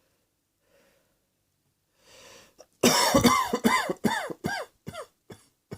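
A person breathes in, then coughs in a rapid fit of about eight coughs, each falling in pitch, that grow weaker and further apart before a last short cough near the end.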